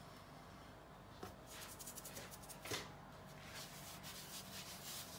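Faint soft rubbing of a hand sprinkling and spreading flour across a kitchen countertop, with a couple of light taps about a second in and near the middle.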